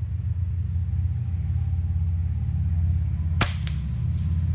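A single shot from a .25-calibre Hatsan Nova QE PCP air rifle with its built-in sound moderator: one sharp crack about three and a half seconds in, followed a quarter second later by a fainter click. A steady low rumble runs underneath.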